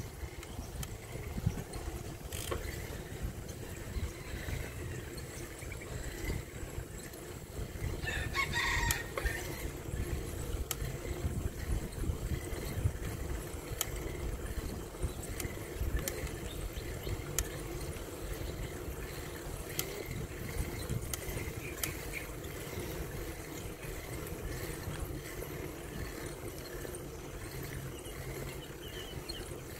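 Steady low rumble of wind and tyres from a bicycle ride, with scattered light clicks and rattles. About eight seconds in, a rooster crows once.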